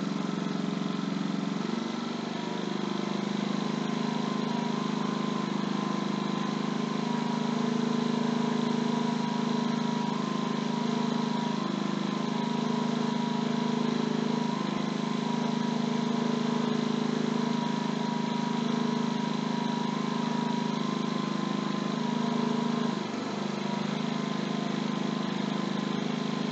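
Ryobi 4000-watt open-chassis inverter generator running steadily at full speed with its low-idle (economy) switch off. Near the end the engine briefly dips and sags in pitch, then recovers, as the RV air conditioner's fan kicks on and loads it.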